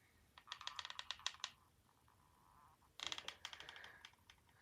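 Two short runs of quick, light clicks and rattles, each about a second long, one near the start and one about three seconds in: small hard craft items being handled on a tabletop while candies are hot-glued onto a box.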